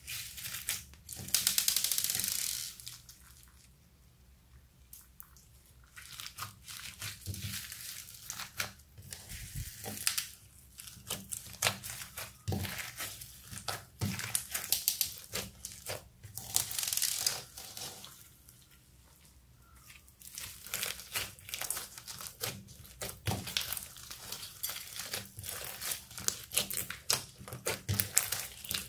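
Clear slime being stretched, squeezed and kneaded by hand: dense runs of sticky clicks and pops. A louder rush of noise comes about a second in, and there are two short quiet pauses.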